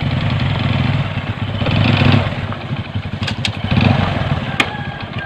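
Motorcycle engine running, its revs rising twice, about two seconds in and again about four seconds in. A few sharp clicks fall between those swells.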